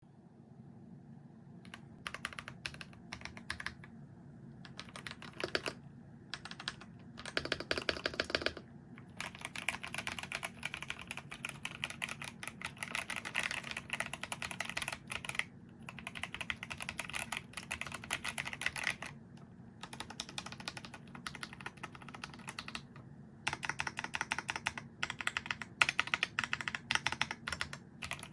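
Typing on a Keychron V1 Max 75% mechanical keyboard with banana switches: rapid keystrokes clacking in bursts of several seconds, broken by short pauses.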